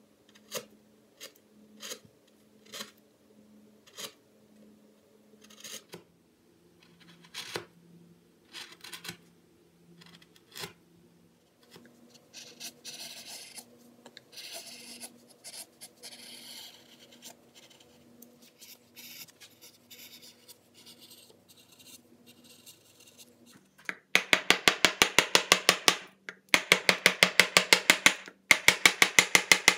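Carving gouges cutting mahogany by hand: crisp single cuts about once or twice a second, then scraping paring strokes with chips breaking away. Near the end, loud rapid drum-like percussion music starts and takes over, with faint background music under the carving throughout.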